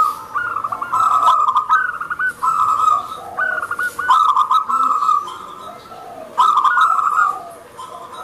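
Zebra dove (perkutut) cooing in its trilling song, phrase after phrase of rapid rolling notes with short pauses between them.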